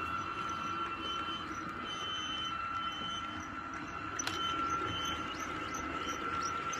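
H0-scale model passenger coaches rolling past on the track, with a steady high whine and light clicking about twice a second. One sharper click comes just after the fourth second.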